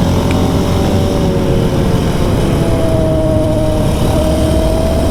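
Yamaha Raptor 700R quad's single-cylinder engine running at a steady road speed on asphalt, with a steady hum from the knobby tyres rolling on the tarmac.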